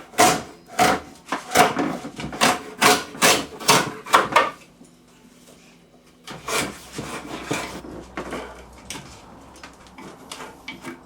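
Rhythmic scraping strokes of hand work on the wooden stool, about two a second. They pause about halfway through, then go on as fainter, more continuous rubbing.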